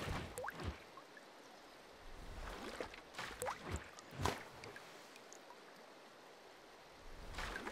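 Water sound effects: scattered drips, plops and bubbling, with a few short blips that rise in pitch, and quieter gaps between them.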